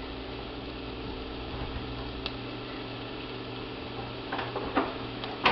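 Steady low hum with a faint hiss as sausage and onion cook gently in a saucepan on an electric burner. A light click comes about two seconds in, and a few soft knocks come near the end.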